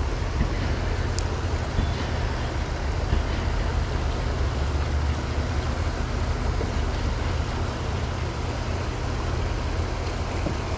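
Steady rushing of a shallow river riffle, an even noise with a heavy low rumble under it.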